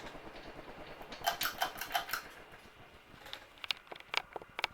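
Palm Air ceiling fan coasting down after being switched off, a faint steady whir that fades away. Light clicks and rattles come in a cluster around the middle and again near the end.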